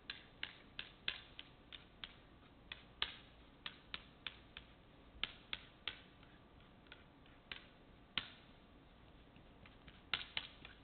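Faint, irregular sharp clicks as fingertips and fingernails work the leftover silicone bead along a seam in a synthetic bowling lane surface, rolling the excess edge over. The clicks come a few a second, pause for a moment, then bunch up again near the end.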